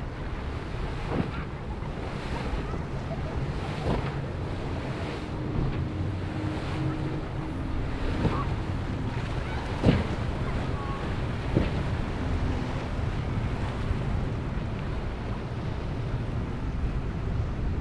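Cabin cruiser crossing choppy inlet waves: a steady rush of surf and wind on the microphone under a faint low engine hum, with the hull slamming onto the waves about five times, the loudest about ten seconds in.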